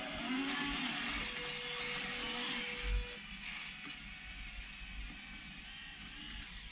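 Actuonix (Firgelli) linear servos on an RC excavator whining as they drive the boom, arm and bucket, several running at once through a mixed digging move. The pitch rises and falls as they move, with a steadier tone in the first few seconds, and the whine stops near the end.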